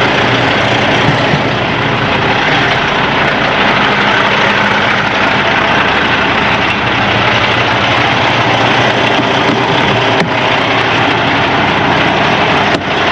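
Diesel truck engine idling steadily up close, running again after fuel was primed back into it; the stall was put down to a loose fuel filter that had been leaking.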